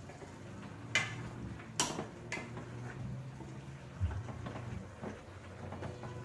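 Long metal spoon stirring chopped vegetables in a pot, with three sharp clinks of the spoon on the pot at about one, two and two and a half seconds, then softer knocks and scrapes, over a low steady hum.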